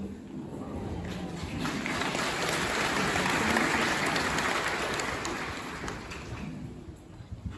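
Audience applauding, swelling to a peak a few seconds in and then dying away.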